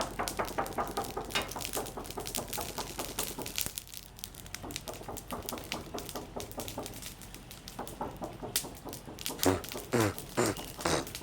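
Charcoal fire crackling with rapid, irregular clicks while it is being fanned to catch.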